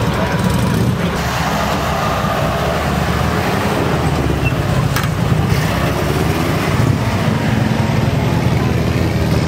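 Motorcycle engines running with a loud, steady low rumble.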